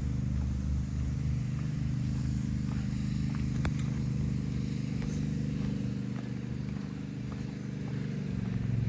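Steady low mechanical hum of a motor running, several steady low tones holding level, with a few faint ticks and knocks over it.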